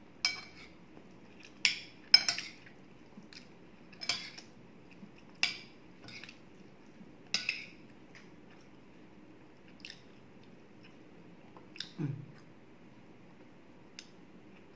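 Metal spoon and fork clinking and scraping against a plate of rice, sardines and boiled egg as food is scooped up: about six sharp clinks in the first eight seconds, then a few fainter ones. A duller, lower knock comes about twelve seconds in.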